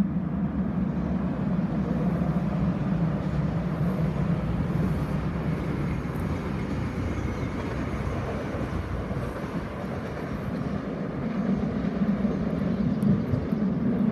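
Regional passenger train running across a viaduct, a steady rumble, with a faint high whine about halfway through.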